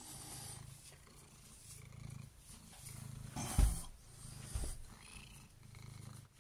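Domestic cat purring, a low rumble in phrases about a second long with short gaps between them. A sharp thump comes a little over three and a half seconds in, and a smaller knock about a second later.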